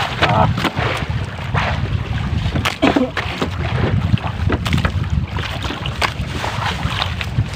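Steady wind buffeting the microphone over water around a small wooden outrigger boat at sea, with scattered knocks and clicks as gear is handled aboard.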